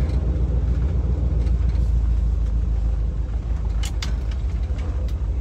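The 1963 Chevrolet Impala SS's engine running while the car moves slowly, a steady low rumble heard from inside the cabin. A few light clicks come about four seconds in.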